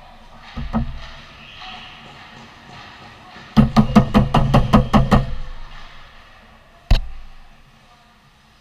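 A rapid run of about a dozen loud bangs, roughly seven a second, echoing in an indoor ice rink, followed a second and a half later by a single sharp crack.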